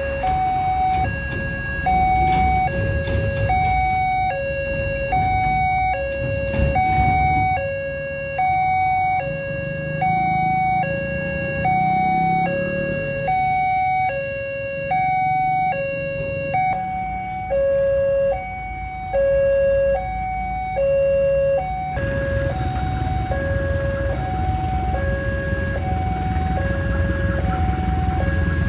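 Railway level-crossing warning siren sounding for the closing barrier: a two-tone signal alternating between a higher and a lower pitch, each held about half a second. A low rumble runs underneath and gets louder after about 22 seconds.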